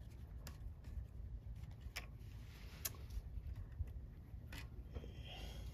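A few faint, sharp metallic clicks from needle-nose pliers working an electrical wire into a wrap, over a steady low rumble.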